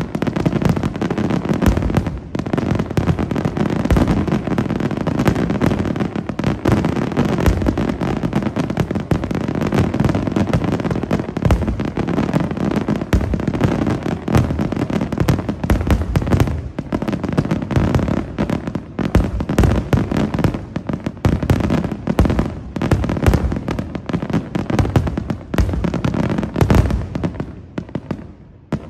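Senatore Fireworks aerial shells bursting in a dense, continuous barrage of booms and crackle, the blasts coming one on another and thinning out near the end.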